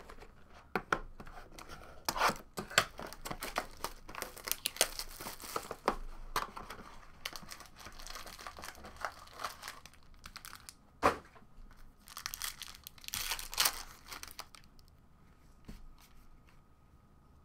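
Trading-card packaging being torn open, with plastic and foil wrapping ripping and crinkling in quick, irregular rustles and one sharp snap about two-thirds of the way through. The rustling dies down for the last few seconds.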